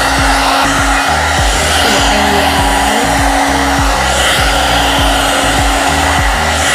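One-step hot air brush (round-brush hair dryer) running on its low setting, brushed through wet hair: a loud, steady rush of blown air over a steady motor hum.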